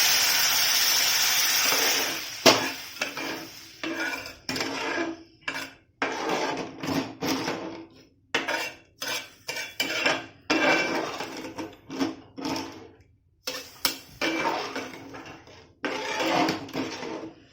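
Hot water hitting the pan of ghee-roasted broken wheat hisses and sizzles for about two seconds, then dies away. After that a metal spoon clinks and scrapes against the pot in short, irregular strokes as the lapsi is stirred.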